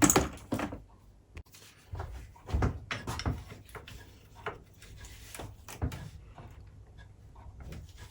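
Irregular knocks and clicks of hand tools and bicycle parts being handled during a BMX strip-down, with the sharpest click right at the start.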